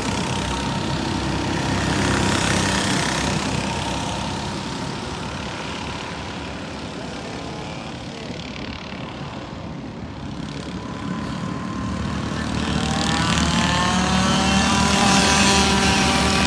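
Several racing kart engines running on the track. They ease off a little in the middle, then grow louder and rise in pitch over the last few seconds as karts accelerate toward the finish straight.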